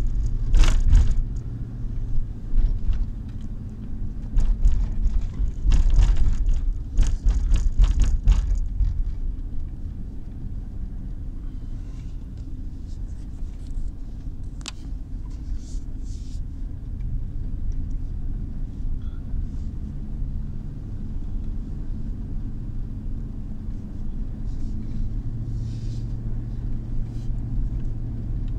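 Car cabin noise while driving: steady low engine and tyre rumble on the road. Sharp knocks and rattles come in a cluster during the first several seconds, then the rumble carries on alone.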